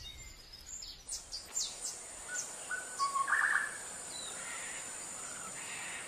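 Forest ambience with wild birds chirping: short, sharp falling whistles and chirps from about a second in, over a steady high-pitched hum.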